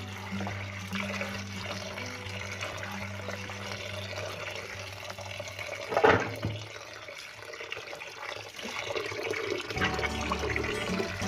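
Tap water running into a plastic basin of sliced bamboo shoots, splashing as hands rinse and stir them. One brief, louder sound about six seconds in stands out above the steady running water.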